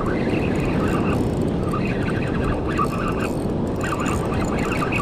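Spinning reel being wound in against a hooked fish, its gears whirring in short on-and-off spells over a steady rush of wind and surf.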